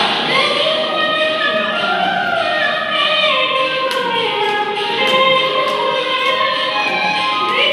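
A group of women's voices singing a dance song together, the melody gliding up and down in pitch.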